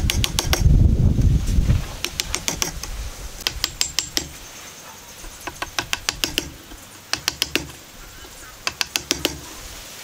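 Hand chisel paring and levering chips out of a wooden joint, wood fibres crackling in short runs of quick sharp clicks, five runs in all. A low rumble of the tool and hands against the block fills the first couple of seconds and is the loudest part.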